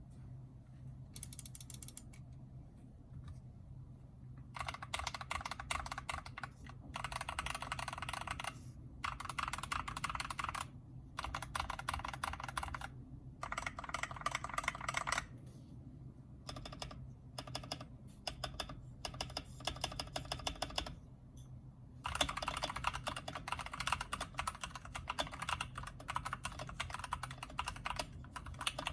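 Typing on an LK67 mechanical keyboard with lubed TTC Heart linear switches in an aluminium plate, under pudding keycaps: quick runs of keystrokes in bursts of a second or two with short pauses, turning into steady continuous typing about two-thirds of the way in. The owner finds the sound cheap despite the lubing.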